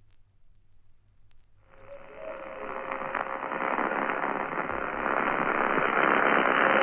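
Radio static: a narrow, crackling hiss comes on suddenly about a second and a half in and grows steadily louder, with a faint steady tone under it.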